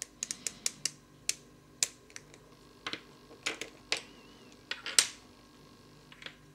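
Sharp plastic clicks from a Square-1 puzzle as its layers are twisted and forced, an irregular run of clicks with the loudest about five seconds in, as two edge pieces pop out of the puzzle.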